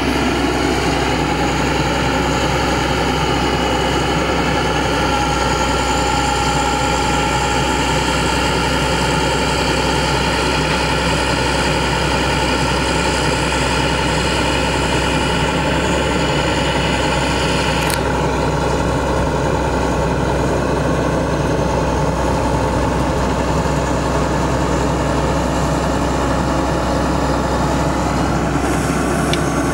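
International DT466 diesel engine of a bucket truck running steadily, driving the hydraulics of the Elliott boom as it is raised, a steady drone with a high whine. About 18 s in, the high hiss drops away suddenly while the drone carries on.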